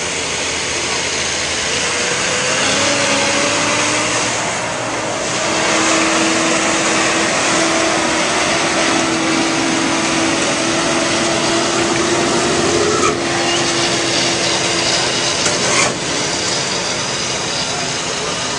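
M35A2 deuce-and-a-half's multifuel turbo-diesel engine pulling hard under load in second gear low, dragging a weight-transfer sled over dirt. A whine rises in pitch about three seconds in and then holds steady until roughly two-thirds of the way through.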